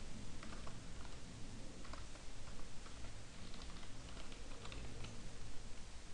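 Computer keyboard being typed on: irregular, scattered key clicks in short runs.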